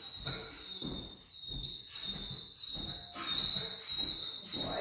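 Footsteps of a person walking a small dog on a leash across a laminate floor, about two steps a second. Each step comes with a short, high metallic clink that rings briefly.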